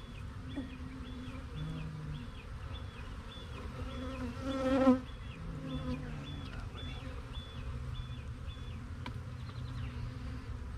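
Honeybees buzzing around an opened hive during a colony removal, a steady hum of many bees. About halfway through, one bee flies close to the microphone, its buzz swelling loud and then cutting off.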